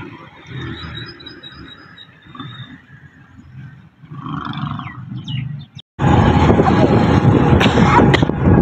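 Outdoor street background with low rumble and a few short bird chirps, then about six seconds in an abrupt cut to loud rushing wind on the microphone and a motorbike running as it rides along the road.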